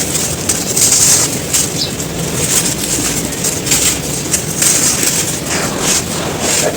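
Dry, dusty sand chunks being crumbled and crushed: a dense, continuous gritty crunching and crackling with many small sharp cracks.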